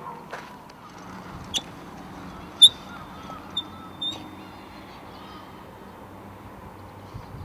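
Quiet outdoor ambience with a faint steady background, broken by a few short, sharp high chirps; the loudest comes about two and a half seconds in, and a thin high tone hangs on for about a second and a half after it.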